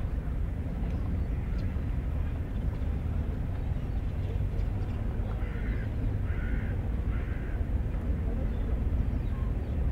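A crow cawing three times in a row, a little past the middle, over a steady low rumble.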